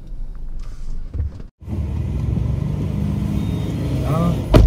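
Car driving, heard from inside the cabin: a steady low rumble of engine and road noise that drops out for an instant about one and a half seconds in and comes back louder. A sharp knock near the end.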